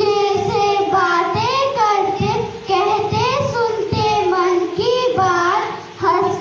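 A small group of children singing a rhyme together, with a short pause between lines near the end.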